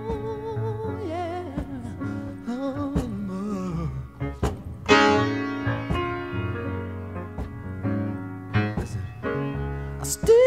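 Solo piano playing chords under a high male voice singing wordless, sliding runs with vibrato.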